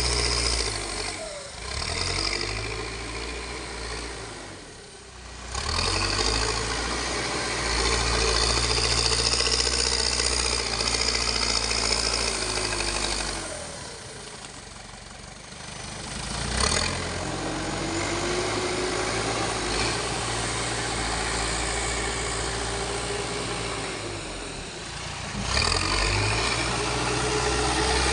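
Backhoe loader's diesel engine running under varying load. It drops to a quieter, lower note about five seconds in, again in the middle and once more near the end, then picks back up each time.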